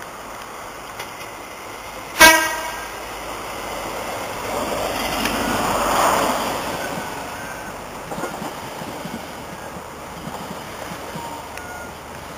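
A First Great Western High Speed Train (InterCity 125) gives a short, sharp horn blast about two seconds in as it approaches. Its Class 43 diesel power car then passes close by, the engine and wheel noise swelling to a peak about six seconds in, then easing as the coaches run past.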